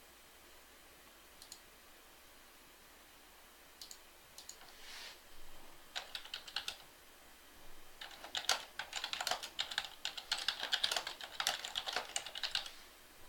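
Typing on a computer keyboard: a few scattered key clicks, then a fast run of keystrokes in the second half.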